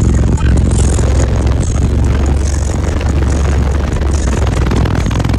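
Four DC Audio Level 6 18-inch subwoofers in a sixth-order bandpass enclosure playing music at very high volume in a single-cab truck: loud, continuous deep bass, with a harsh hiss riding over it.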